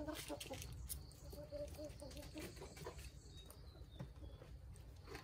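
Domestic chickens clucking in short low calls while feeding, with scattered light taps of beaks pecking.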